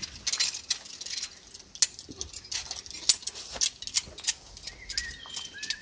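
Metal climbing carabiners and harness gear clinking: an uneven run of light metallic clicks.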